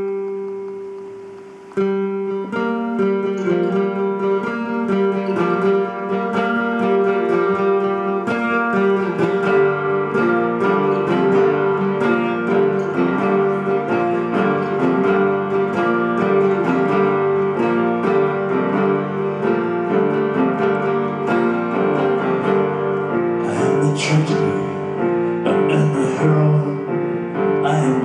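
Live band playing an instrumental passage of the song, on guitar and keyboard: a held chord, then a steady repeating figure of notes that fills out with lower notes about nine seconds in.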